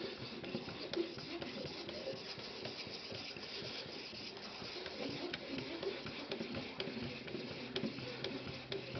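Aluminum oxide water stone of an Edge Pro Apex sharpener being stroked along the edge of a ZDP-189 steel knife blade: a continuous scraping with many small clicks. The coarse 600-grit stone is cutting the edge down to raise a burr.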